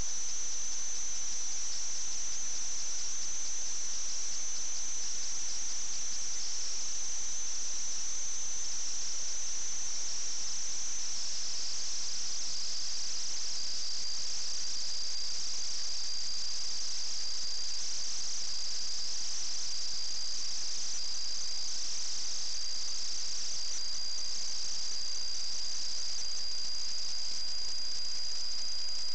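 A steady high-pitched electronic whine over faint hiss, dropping slightly in pitch about halfway through. It is the electrical noise of a sewer inspection camera system's recording, with no other sound in the pipe.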